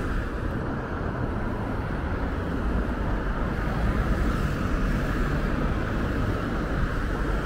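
Steady road traffic noise from cars on a town high street, a low rumble that holds level throughout.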